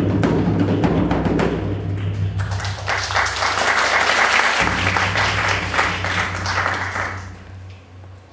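Japanese taiko drums, including a large odaiko, struck in fast continuous rolls. About two and a half seconds in, a bright wash of applause rises over the drumming, and everything fades away near the end.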